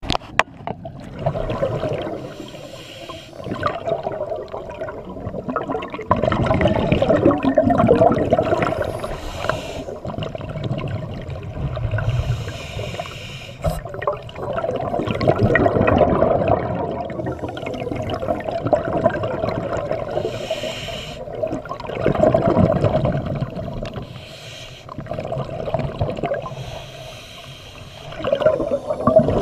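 Scuba divers breathing through regulators underwater: exhaled air bubbles out in gurgling rushes that swell and fade every few seconds.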